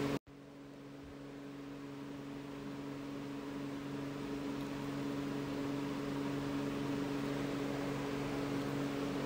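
Steady low hum with an even hiss, fading up gradually after a brief dropout at the start.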